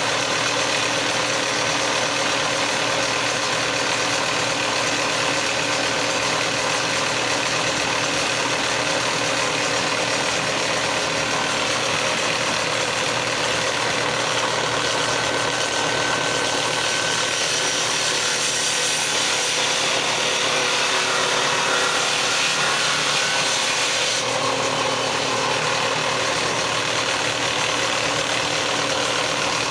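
A power woodworking tool running steadily and without a break, cutting into a wooden door-jamb piece.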